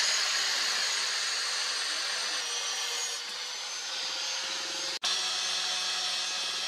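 Angle grinder with a thin abrasive cut-off disc cutting through leaf-spring steel: a steady grinding whine that cuts out for an instant about five seconds in, then carries on.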